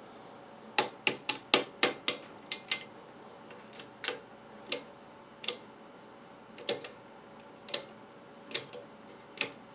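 A vintage Drake 2-B receiver, played through a bare speaker, giving a faint steady hum under a run of sharp clicks and pops. The clicks come quickly at first, then about one a second. The hum is the sign of its failing main filter capacitor.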